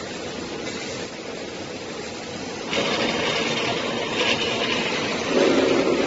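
Automatic pocket spring mattress assembling machine running: steady mechanical machine noise. A hiss gets louder about three seconds in, and a lower drone swells near the end.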